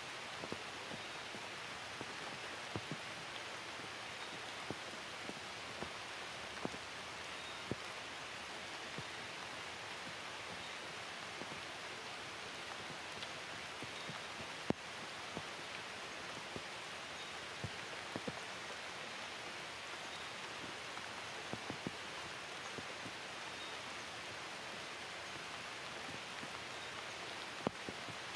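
Steady rain falling, with single drops striking close by at irregular moments, one sharper than the rest about halfway through.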